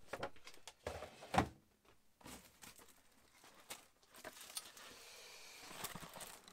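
Shrink-wrapped firework packs being handled in a cardboard box: a few knocks and taps, the loudest about a second and a half in, then scattered light ticks and a rustling of plastic wrap and cardboard from about four seconds until near the end.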